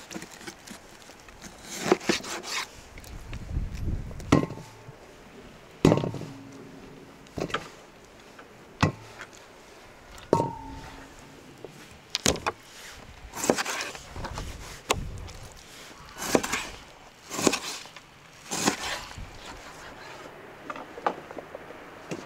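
Repeated chopping blows of a blade into wood, about one every second and a half, a few of them leaving a brief metallic ring.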